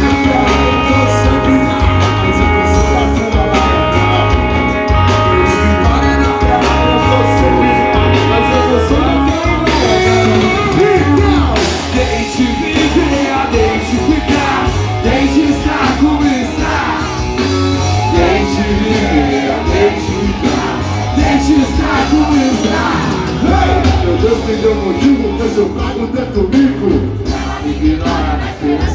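Live rock band playing loud through a PA: a male singer over drums and electric guitar, with a steady driving beat.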